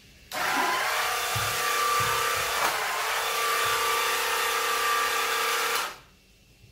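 Small electric motor of a cordless red floor sweeper running at a steady pitch for about five and a half seconds, with a few light knocks, then switched off abruptly.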